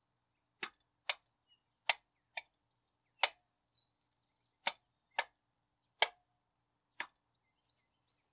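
A series of about ten sharp, single clicks or taps at irregular intervals, typical of hand tools or small metal parts being handled during engine assembly.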